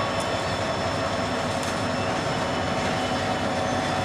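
Diesel locomotive's engine running with a steady, unchanging drone.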